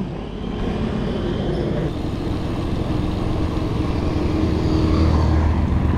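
A motorcycle engine running and growing louder toward the end, over steady wind and road rumble on a bicycle-mounted action camera.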